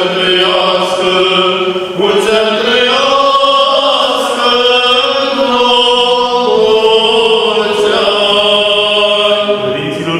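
Eastern Orthodox church chant: voices sing slow, long-held notes that shift in pitch every few seconds.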